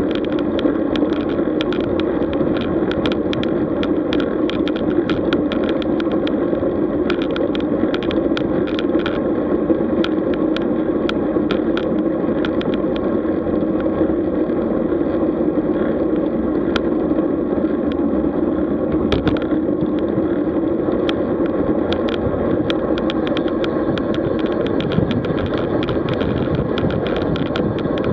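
Road bike being ridden: steady rushing wind and tyre noise with frequent small clicks and rattles.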